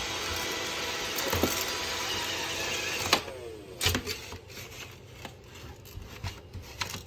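Roomba robot vacuum running with a steady whir, then switching off about three seconds in, its motor winding down with a falling pitch, followed by a few light clicks and knocks.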